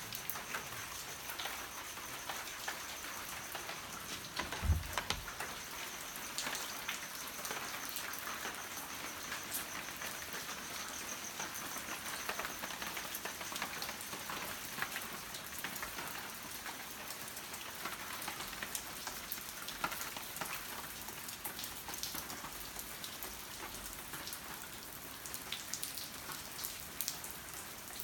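Steady rain falling, with many individual drops ticking sharply close by. There is a single low thump about five seconds in.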